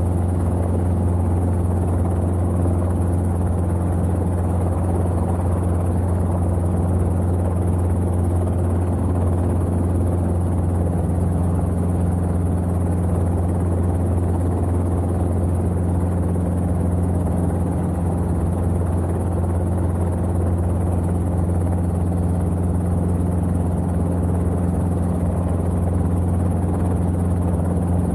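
Robinson R22 helicopter's engine and rotors running steadily during takeoff and climb-out, heard from inside the cockpit as an unbroken low drone.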